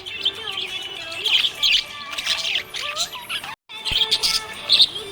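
Budgerigar chirping and warbling in quick, busy runs of short notes, with a brief break about three and a half seconds in.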